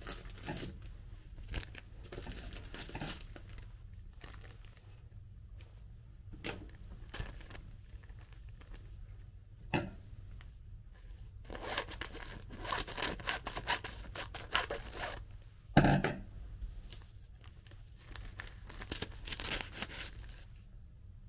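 A clear plastic packet of nori sheets crinkling and rustling in bursts as it is handled and pulled open. There is one louder thump about two-thirds of the way through.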